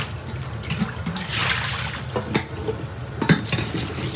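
Tap water running into a stainless-steel kitchen sink as a vegetable is rinsed under it, with a couple of sharp knocks about two and three seconds in.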